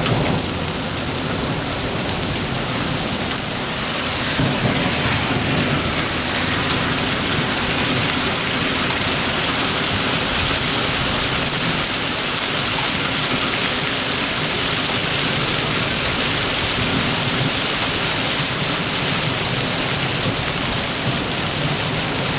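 Torrential downpour from a supercell thunderstorm pelting an asphalt road, a dense, steady hiss.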